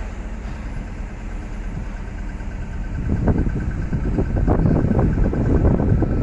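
Steady low rumble of a vehicle engine. About halfway through, gusts of wind start buffeting the microphone, louder and uneven.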